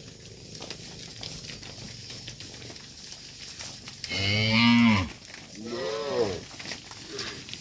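Cattle mooing: one loud moo about four seconds in, followed closely by a second, softer moo.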